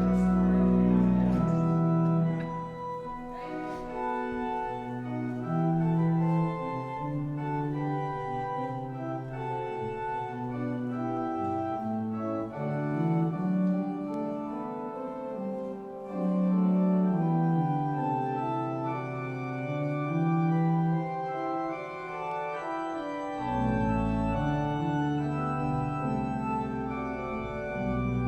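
Church organ playing slow music in held chords, with deep pedal bass notes at the start and coming back in near the end.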